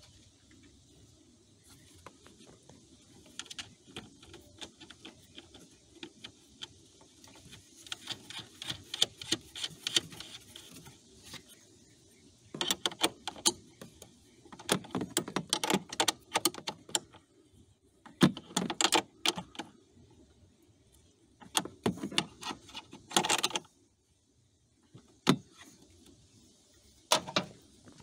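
Hard plastic trim parts of a BMW X5 E53's cabin air filter housing being handled and fitted by hand: clusters of clicks, taps and rattles with pauses between, then two single clicks near the end.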